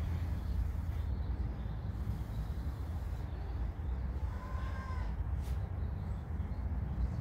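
Steady low rumble of outdoor background noise, with one short, slightly arching animal call about four and a half seconds in and a faint click just after.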